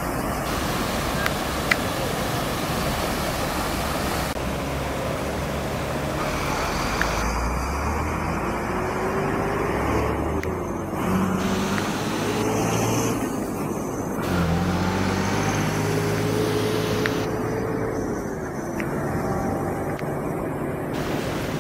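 Muddy floodwater rushing across a road in a steady roar, mixed with the engines of queued trucks and cars running; through the middle, heavy engine hum comes up more strongly, with one pitch slowly rising and falling.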